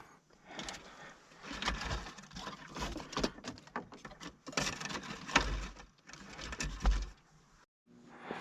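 Irregular rustling and clicking, with a few dull knocks, from tracer wire being handled and coiled inside a plastic underground cable tub. The sound cuts off abruptly near the end.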